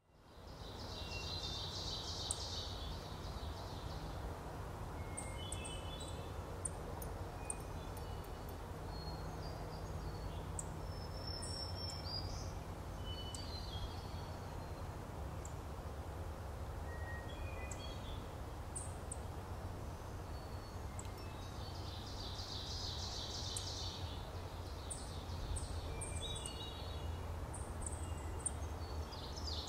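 Ovenbirds calling in woodland: scattered sharp, high chip notes, and twice (near the start and about three-quarters through) the loud, fast-repeated chant song of an ovenbird, the 'teacher, teacher, TEACHER' song. A low steady rumble runs underneath.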